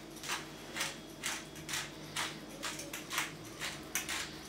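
Glass spice jar of chili and coriander being worked over raw pork, giving crisp rattling strokes about twice a second as the spice is dispensed.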